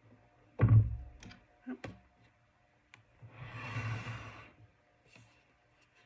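Handling knocks from a laptop and a wire-organizer stand on a desk: one solid knock, a couple of light clicks about a second later, then about a second of soft rushing noise.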